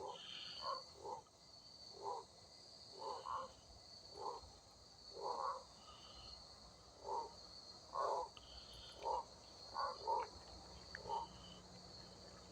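Insect chorus, crickets or similar, keeping up a steady high trill. Over it come short, lower-pitched calls about once a second, some in quick pairs.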